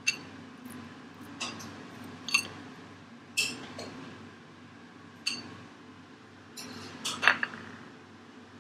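Spoon tapping and clinking against glass dishes, sharp ringing clinks every second or two, with a louder double knock about seven seconds in.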